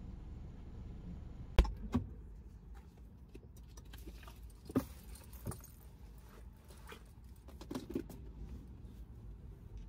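A few scattered knocks and clicks of a cardboard box being handled and lifted off a leather car seat, over a low steady rumble.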